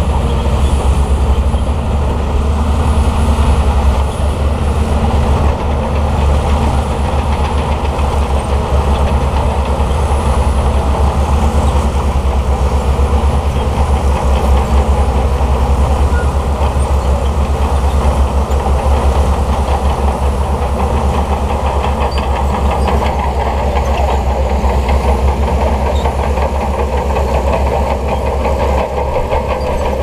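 Shantui crawler bulldozer's diesel engine running steadily under load while it pushes sand, a deep even rumble with the clatter of its steel tracks.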